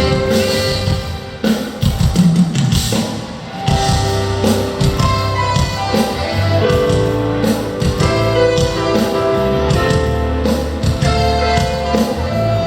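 Live band music at a concert sound check: drum kit and guitar under held sustained notes, with a brief drop in level about three seconds in.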